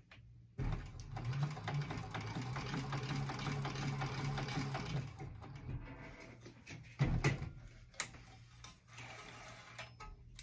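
Industrial sewing machine running a line of top stitching. It starts about half a second in, runs steadily for about four seconds, then slows and stops, followed by two short knocks.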